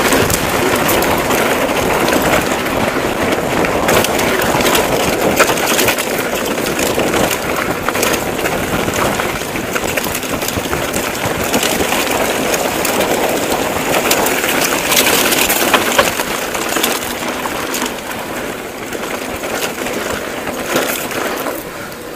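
Mountain bike rolling down a dirt and gravel trail: a steady crunch of tyres on loose ground with frequent small clicks and rattles from the bike.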